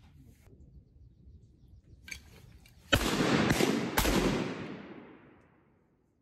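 Shotgun shots at ducks: three sharp blasts within about a second, starting about three seconds in, with a long echoing tail that fades over about two seconds.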